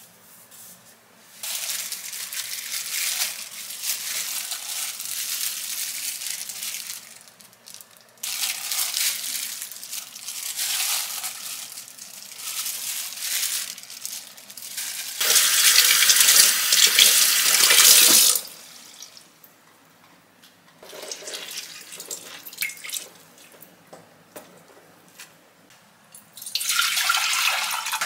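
Wet, splashy food-prep sounds as aged kimchi is squeezed and handled in plastic-gloved hands, coming in several stretches, the loudest a little past halfway. Near the end a plastic food package crinkles as it is opened.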